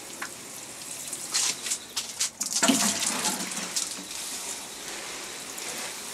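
Water sprinkling from the rose of a plastic watering can onto soil and leaves: a steady spattering hiss.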